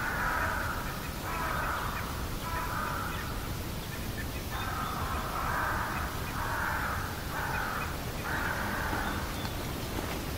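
Crows cawing: about seven calls, each under a second long, with a pause of about a second a third of the way through.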